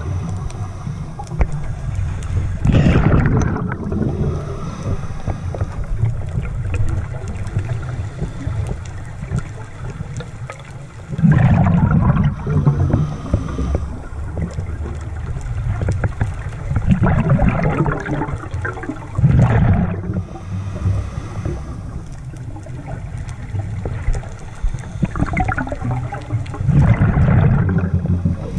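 Scuba regulator exhaust underwater: a diver's exhaled air bubbling out in loud bursts every few seconds, each lasting a second or two, over a steady low underwater rumble.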